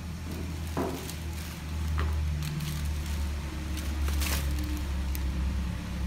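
Steady low rumble, louder from about two seconds in, with a few light snips and rustles from scissors trimming feathers.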